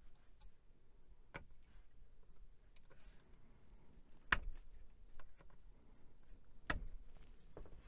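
Scattered sharp clicks and taps of small hand work on an opened laptop's plastic and metal parts, a few seconds apart, the loudest two about halfway through and near the end.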